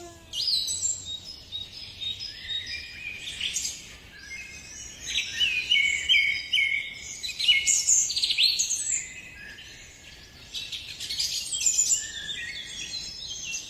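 Small birds chirping and twittering: a busy run of short, high chirps and quick downward-sweeping notes, coming in clusters with brief lulls.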